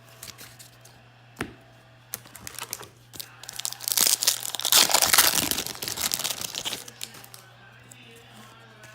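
Foil wrapper of a baseball card pack being torn open and crinkled, loudest for about three seconds in the middle, with a few light clicks of card handling before it.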